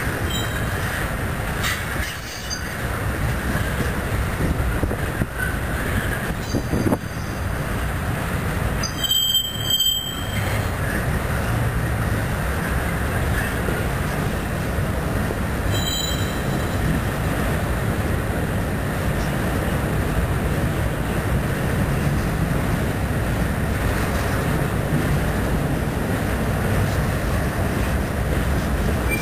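CN freight train rolling past, a steady rumble and clatter from its tank cars and flatcars. A couple of brief high-pitched squeals cut in about nine seconds in and again near sixteen seconds.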